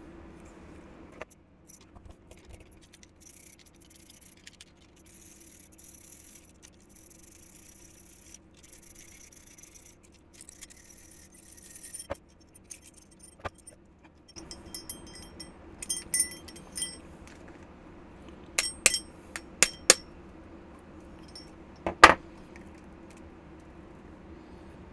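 Metal parts of a home-built brass-and-aluminium power cylinder being worked apart by hand: a faint scraping hiss during the first half, then a run of sharp metallic clinks and knocks as the head comes off, the loudest about 22 seconds in.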